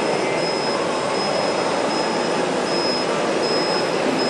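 Steady whirring din of RC model construction machines' electric motors and hydraulic pumps, with a thin high whine that comes and goes.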